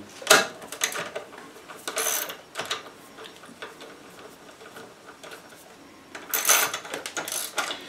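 Small hand ratchet clicking as it tightens an exhaust bolt on a scooter: short runs of clicks early, then a longer, louder run near the end.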